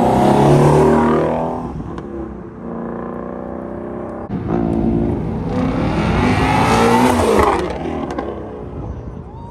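Exotic sports car engine accelerating past: loud for the first second and a half, dropping back to a steadier drone, then revving up sharply about four seconds in, with the pitch climbing and falling before it fades near the end.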